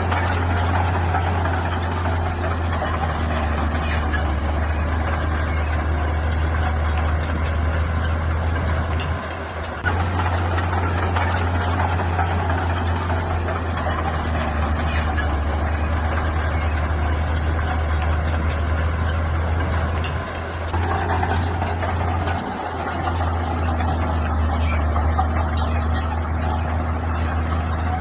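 Diesel engine of heavy earthmoving equipment running steadily with a deep hum and clatter. It eases off briefly twice, about a third of the way in and again about three quarters of the way through.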